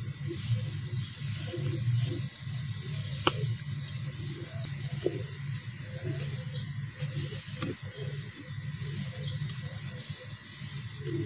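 Damp sand-cement mix being squeezed and crumbled by hand: soft, gritty crunching and crumbling, with a couple of sharp clicks.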